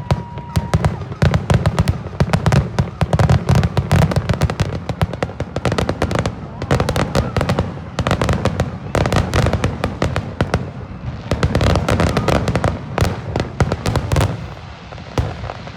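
Fireworks display at its finale: a dense, rapid barrage of bangs and crackling reports over a heavy low rumble, stopping abruptly about fourteen seconds in.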